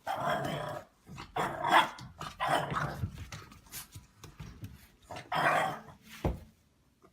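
A dog vocalizing in about four short bursts, followed by a single sharp knock near the end.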